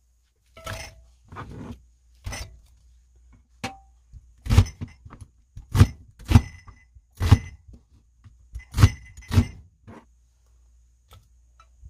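A knife cutting onion on a plastic cutting board, and onion chunks knocking into a Pyrex glass dish: a series of about ten irregular knocks, a few with a short glassy ring, the loudest in the second half.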